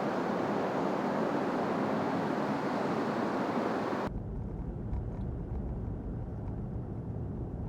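Steady rushing background noise, cut off suddenly about four seconds in and replaced by a lower rumble.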